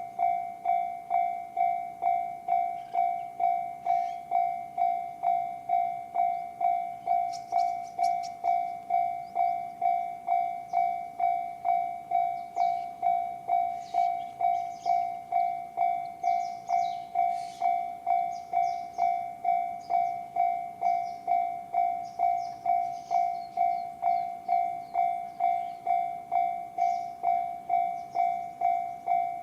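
Japanese railway level-crossing warning alarm in the JR standard sound: an electronic bell tone dinging steadily, about one and a half dings a second, with no break.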